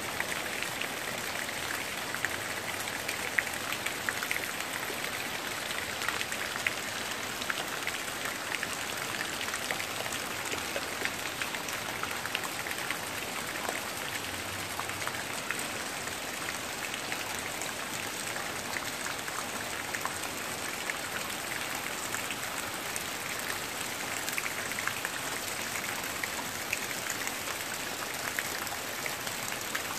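Steady rain: an even hiss of falling water with many scattered sharper ticks of individual drops striking nearby surfaces.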